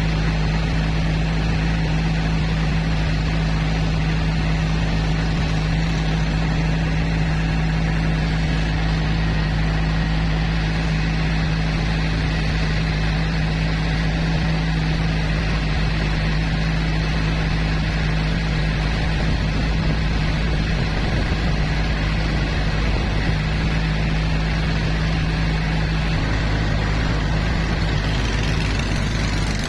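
Boat engine running steadily while the boat cruises along the river, a constant low drone with a slight change in its note near the end.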